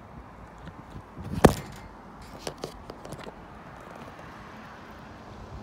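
A single sharp knock about a second and a half in, then a few faint clicks, over a low steady background rumble.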